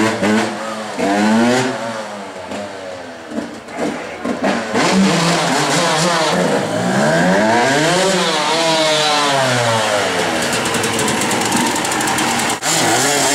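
Yamaha YZ motocross bike engine revving and easing off as it rides along the street, its pitch climbing and falling several times. It fades somewhat a couple of seconds in, then comes back louder as the bike turns and rides back past.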